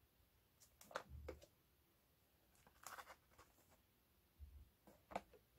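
Faint handling of a boxed pack of 5.25-inch floppy disks as it is turned over in the hands: a few light clicks and a brief rustle, with soft low bumps about a second in and again past four seconds.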